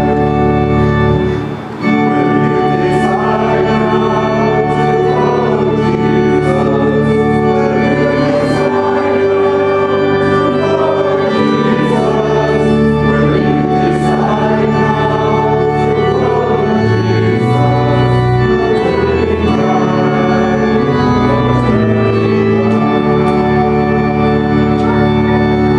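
Church organ playing sustained hymn chords, with a congregation singing along beneath it. The sound dips briefly about two seconds in.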